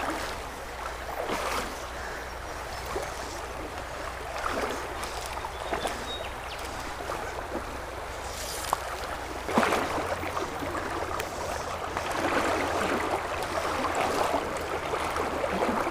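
Shallow river water flowing and rippling over a stony riffle close to the microphone, an even rushing wash, with now and then a brief louder swish.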